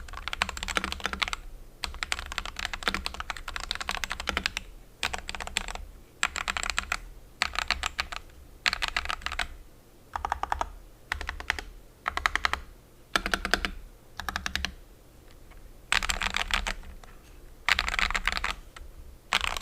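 Typing on an FL-Esports CMMK870 mechanical keyboard with lubed Akko Radiant Red linear switches and thin ABS keycaps. Bursts of rapid keystrokes with short pauses between them; the sound is clacky rather than poppy or thocky, with a clean profile.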